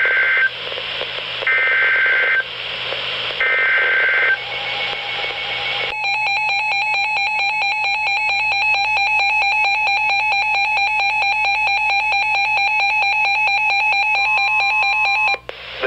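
Emergency Alert System header on NOAA Weather Radio: three short bursts of data tones over radio static, then a long, steady alert tone from about six seconds in that cuts off just before the spoken warning.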